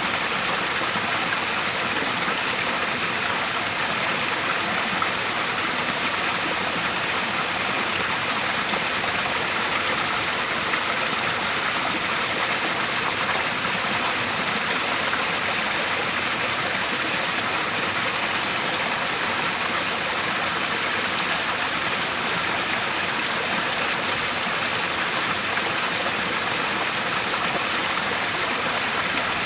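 Waterfall water falling and rushing, a steady, even splashing roar with no change.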